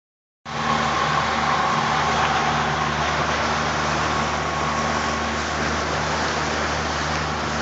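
Motorboat engine running steadily under a constant hiss.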